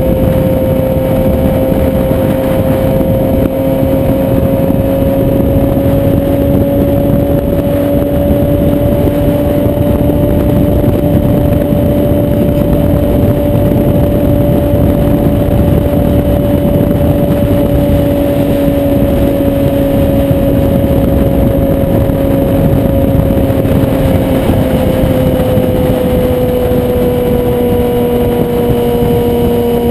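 Motorcycle engine running steadily at cruising speed, its note rising slightly in the first few seconds and easing down near the end, under heavy wind rush on the microphone.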